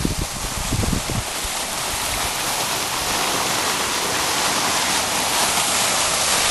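Garden fountain's tall vertical jet falling and splashing into its round pool: a steady rush of water. A few low rumbles on the microphone in the first second.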